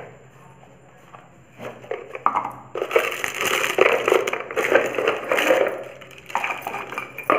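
A dense crackling, crunching noise full of small clicks, starting nearly three seconds in and lasting about three seconds.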